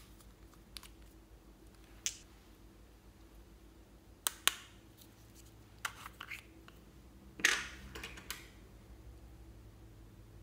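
Scattered sharp clicks and snaps of small plastic makeup containers being handled and opened, a pair of clicks about four and a half seconds in and a louder, longer crackle about seven and a half seconds in.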